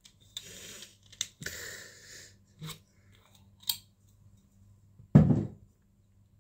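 Hands handling something on a table: short rustling and scraping noises with a few sharp clicks, then one loud thump about five seconds in.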